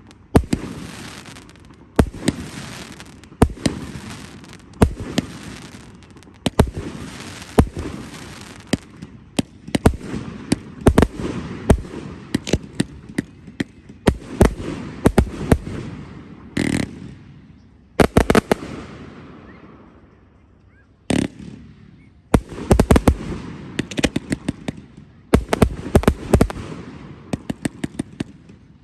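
Fireworks display: aerial shells bursting one after another with sharp bangs, each trailing off into a rumbling echo. After a brief lull about twenty seconds in, the bangs come in quick rapid-fire clusters.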